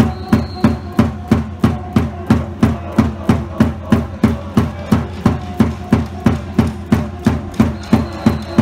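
A cheering drum beaten in a steady, even rhythm, about three beats a second.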